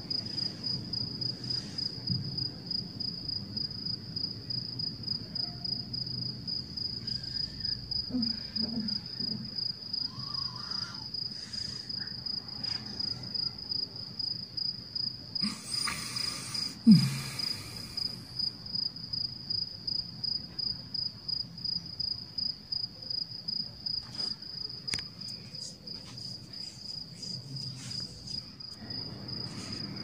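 Steady high-pitched insect chirring in a rapid, even pulse. In the middle comes a brief rushing noise, and a short, sharp sound falling in pitch about 17 seconds in is the loudest moment.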